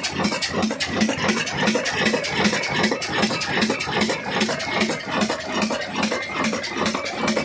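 Old Ruston horizontal diesel engine running steadily, with a regular beat about three times a second and a fast clatter of ticks over it.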